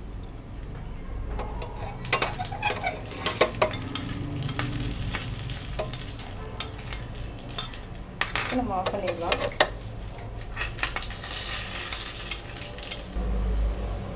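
Broken cashew nuts frying in ghee in a small non-stick kadai, sizzling, while a metal spoon stirs them and clicks and scrapes against the pan.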